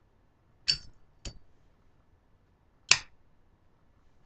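Zippo lighter worked in a finger-snap trick: the metal lid flicked open with a ringing metallic clink, a second sharp click about half a second later, then a single louder clack a second and a half after that.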